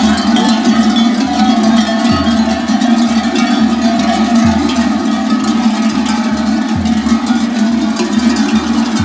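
Many large metal bells hung from the belts of marching costumed mummers, clanging together in a dense, continuous jangle as they walk. A low thump comes about every two and a half seconds.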